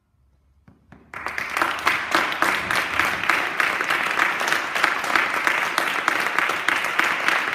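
Audience applause: after about a second of near silence, many people start clapping at once and keep clapping steadily.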